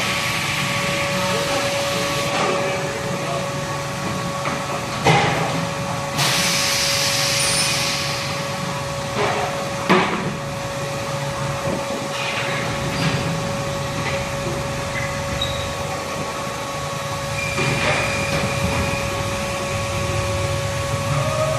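Tire shop work noise: a steady machine hum throughout, with sharp metal knocks about five and ten seconds in and a hiss of air about six seconds in.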